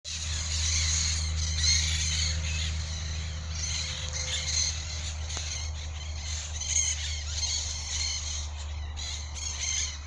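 A large flock of parakeets and parrots squawking and chattering without pause in the treetops, a late-afternoon roosting gathering. A low steady rumble runs underneath and eases after a few seconds.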